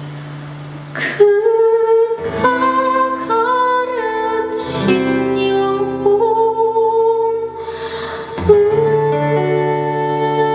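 A band playing live, with a voice singing long held notes over instrumental backing. It gets markedly louder a little over a second in.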